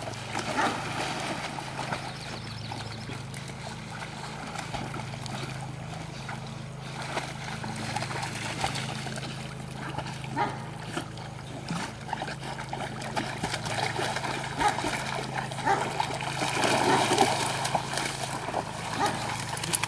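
Several dogs splashing as they swim through pond water after training bumpers, busier and louder near the end as they splash out onto the bank.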